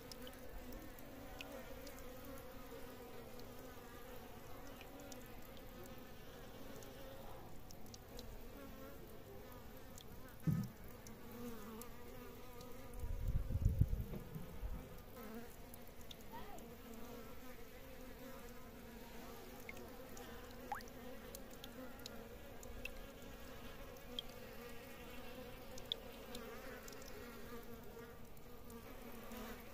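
Insects buzzing steadily, a slightly wavering hum, with scattered light clicks, a sharp knock and a short low thud about halfway through.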